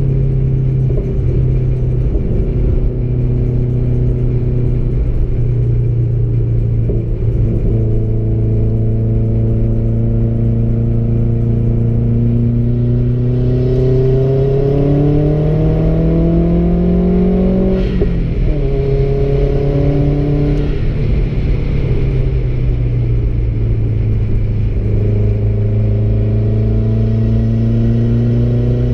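Car engine heard from inside the cabin, driven gently. The revs climb slowly for several seconds, fall sharply about 18 seconds in, climb briefly, fall again about 20 seconds in, then rise once more near the end. Steady road and tyre rumble runs underneath.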